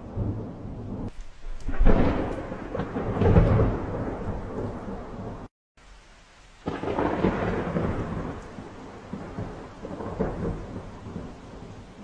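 Thunder rolling in long, deep rumbles with a rain-like hiss beneath: one roll swells a couple of seconds in, the sound cuts out abruptly for about a second near the middle, and a second roll starts and slowly fades.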